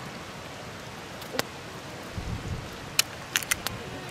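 A sickle blade cutting strips off a crisp white radish. There is one sharp crack about a second and a half in, then a quick run of four sharp cracks near the end, over a steady outdoor hiss.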